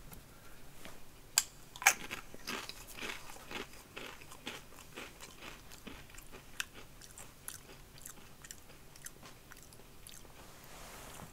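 A Pringles potato crisp bitten with two sharp crunches about a second and a half in, then chewed with a run of crackling crunches that thin out into quieter chewing.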